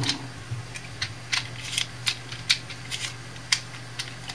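Irregular small clicks and taps of handling, about a dozen in all, over a steady low hum.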